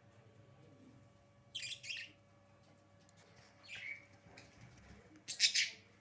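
Budgerigars chirping in three short, high-pitched bursts about two seconds apart.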